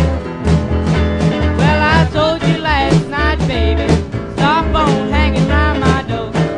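Background music with a steady beat, a bass line and a bending melody on top.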